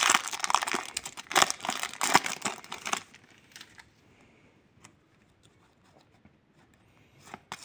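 Foil trading-card packet being torn open and crinkled for about three seconds, then it goes quiet apart from a few faint clicks as the cards are handled.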